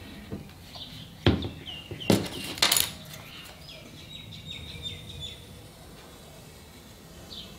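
Three sharp knocks of objects set down and handled on a wooden workbench, followed by a bird chirping a quick run of short high calls.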